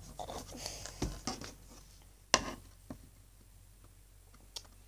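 Handling noise as a small collectible figure on its round base is turned and touched on a tabletop: a few light taps and scrapes, the sharpest about two and a half seconds in, with soft rubbing at the start.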